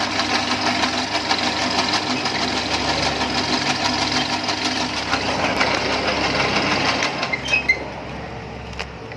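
Motor-driven noodle-making machine running with a fast, even rattle. About seven and a half seconds in it stops with a short high squeak, leaving a lower hum.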